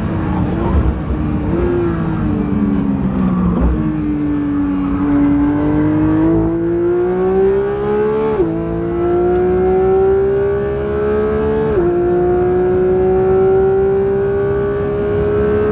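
Porsche 992 GT3's naturally aspirated 4.0-litre flat-six, heard from inside the cabin. The revs fall over the first few seconds with two short downshift steps, then climb steadily through the gears, with sharp drops at the upshifts about two-thirds and three-quarters of the way in.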